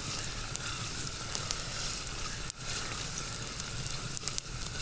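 Chopped onions and chillies sizzling in oil in a pan over a campfire, with many sharp crackles and pops through a steady hiss.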